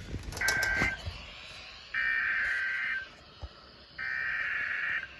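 Emergency Alert System SAME header sent over the air: three bursts of shrill warbling data tones, each about a second long and a second apart, the coded header of a Blizzard Warning (BZW). Faint radio static between the bursts, with one low thump in the middle.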